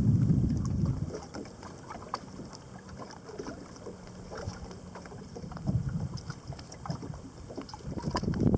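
Wind buffeting the microphone on a small fishing boat, strongest for the first second and again near the end; in the quieter stretch between, scattered small knocks and ticks from the boat and the water, with a faint steady low hum for a few seconds.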